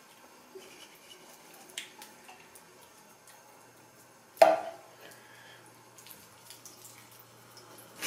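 A thin trickle of water runs faintly from a bathroom sink tap, with a few small clicks. About four and a half seconds in, water tipped from a glass jar splashes over a puppy in the sink: a sudden loud splash that dies away within about half a second.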